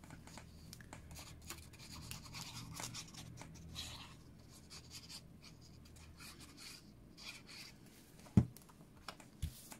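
Paper crafting: soft rustles, light scrapes and small taps of cardstock being handled on a craft mat while liquid glue is squeezed along a card's edge, with one sharp knock about eight seconds in.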